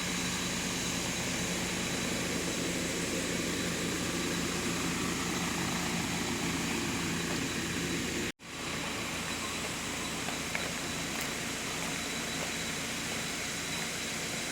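Waterfall rushing: a steady roar of falling water, swollen by the rainy season. It cuts out for an instant a little over halfway through, then carries on as before.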